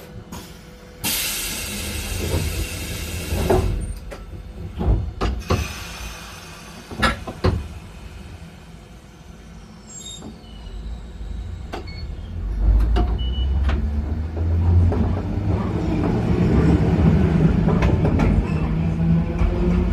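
Randen tram at a station stop: about a second in, a loud hiss of compressed air lasting some two and a half seconds, then a few sharp knocks. From about twelve seconds a low rumble of motors and wheels builds as the tram pulls away and gathers speed.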